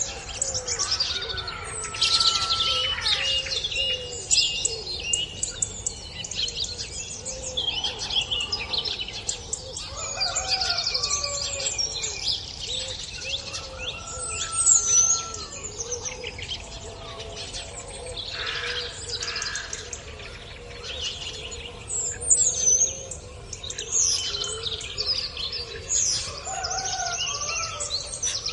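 Birdsong chorus: several birds singing and calling over one another in quick high chirps, trills and whistles, with a lower call repeating steadily underneath.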